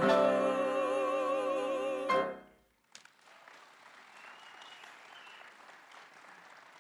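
Three singers with vibrato over accompaniment hold a final chord that cuts off about two seconds in. Then much quieter applause from the audience.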